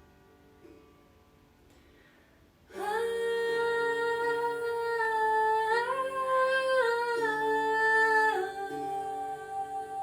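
Meditation music: soft plucked guitar notes, then about three seconds in a voice starts humming long held notes over them, stepping up and down in pitch and easing to a softer tone near the end.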